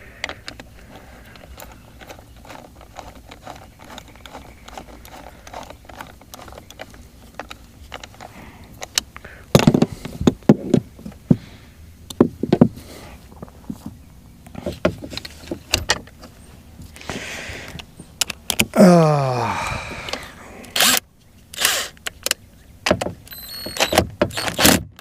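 Clicks, knocks and rattles of hands working the parts of a Mercury boat remote control box, with the control handle being shifted into its neutral position. A brief pitched sound falling in pitch comes about nineteen seconds in.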